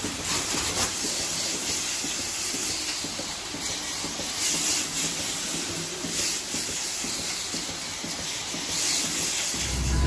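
Steady hissing of milking-parlour equipment, swelling and easing every second or two. A loud low rumble cuts in just before the end.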